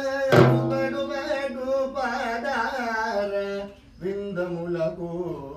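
A man singing a slow, melodic line, with one deep stroke on a large double-headed drum just after the start, its boom ringing for about half a second. The singing breaks briefly a little before four seconds in, then carries on.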